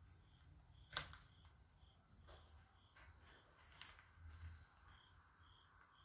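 Near silence: faint insects chirping in a steady rhythm of about two chirps a second, with one sharp click about a second in and a few fainter ticks later.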